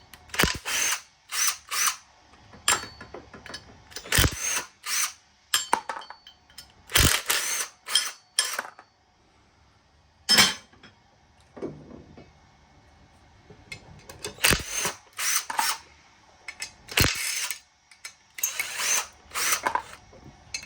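Socket ratchet wrench clicking in short repeated bursts as brass pilot fittings are unscrewed from steel furnace burners, with a quiet stretch about halfway through.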